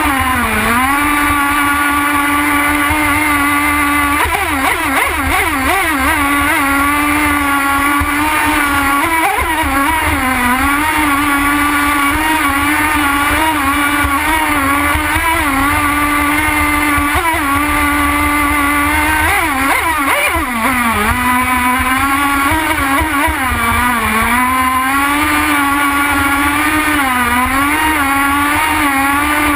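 Nitro glow engine of a radio-controlled model boat running hard at high revs, heard close up from on board. Its pitch holds high but dips briefly and climbs back several times.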